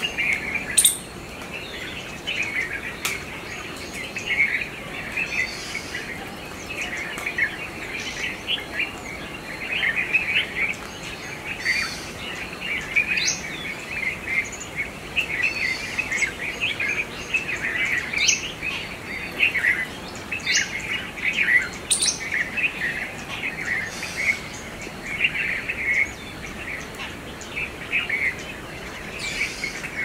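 A dense, busy chatter of many bird chirps and calls, with now and then a short, sharp higher note standing out above it.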